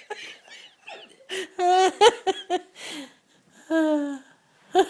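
People laughing in short giggling bursts. A louder run of laughter comes about a second and a half in, and one longer voiced laugh sounds near the end.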